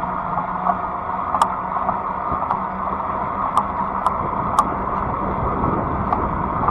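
Fat-tire electric bike riding along a trail: steady rolling tyre and wind noise with a low hum, broken by a few sharp, irregular ticks.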